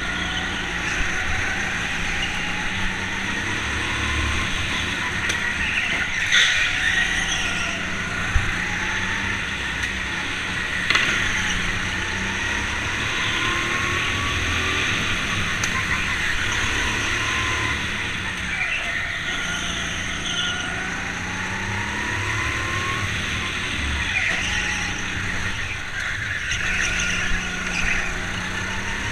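Go-kart motor heard close up from onboard, its pitch rising and falling again and again as the kart accelerates and slows through the corners, with a few sharp knocks along the way.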